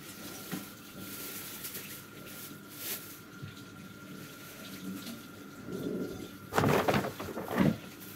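A paper shopping bag crinkling and rustling loudly as a cat scrambles out of it, starting about six and a half seconds in. Before that only a quiet room with a faint steady thin tone.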